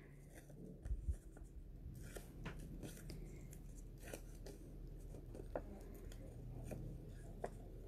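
Faint rustling of paper and card being handled and pressed together, with a few light ticks and taps.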